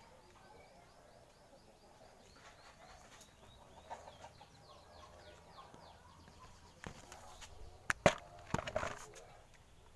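Small birds chirping in quick repeated series, followed by a few sharp knocks or clatters near the end, the loudest about eight seconds in.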